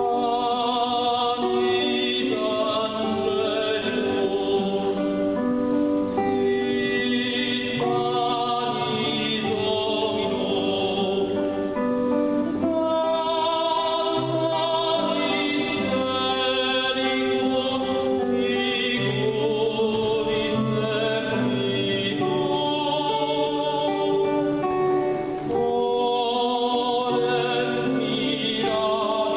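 Tenor singing a sacred piece in operatic style, with vibrato, over a sustained instrumental accompaniment.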